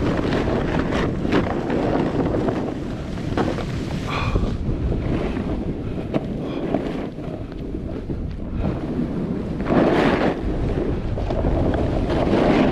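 Wind buffeting the microphone of a snowboarder's camera on a fast run, mixed with the board hissing and scraping through snow. The rush swells twice in the second half.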